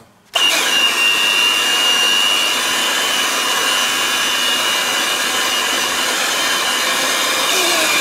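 Electric hand mixer with dough hooks switched on just after the start and running steadily through thick dough in a steel bowl, a motor hum with a high whine that sinks slightly in pitch.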